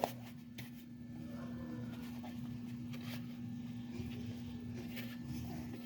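Quiet room tone: a faint, steady low hum with a couple of soft ticks.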